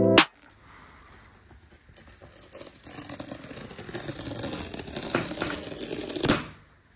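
Paper tear strip peeled slowly off the seal of a MacBook Pro box: a papery tearing that grows steadily louder for about six seconds and ends with one sharp click. A brief electronic tone cuts off just at the start.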